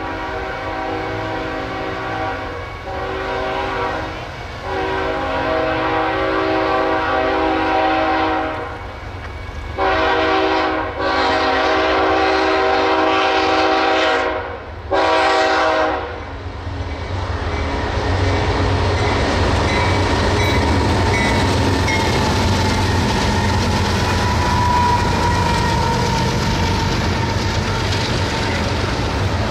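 BNSF freight locomotive's multi-note air horn sounding a series of long blasts, the last one short, as the train approaches. From about halfway through, a steady rumble of the locomotives and double-stack container cars rolling past on the rails.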